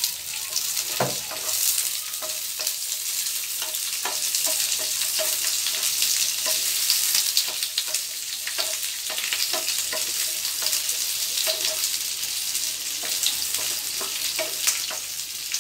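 Chopped onion and green bell pepper sizzling in hot oil in a nonstick frying pan, stirred with a wooden spatula that knocks against the pan again and again.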